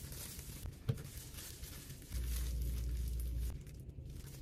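Disposable plastic gloves rustling and crinkling as hair dye is squeezed from an applicator bottle and worked through a strand of hair, with one sharp click about a second in. A low rumble comes in about two seconds in and stops about a second and a half later.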